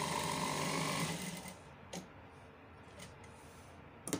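Electric sewing machine running steadily as it stitches a fabric strip, stopping about a second in. A few faint clicks follow.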